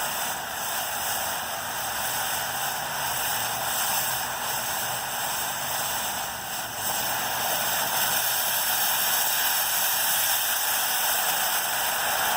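TNT Jalapeno Popper firework fountain burning with a steady, even hiss of spraying sparks.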